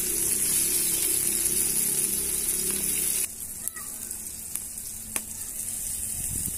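Chopped tomatoes and peppers sizzling as they fry in a hot black wok, stirred with a metal spatula. About three seconds in the sizzle drops sharply and turns quieter, with a few light metal clicks as grated pumpkin is scraped off a steel plate into the wok.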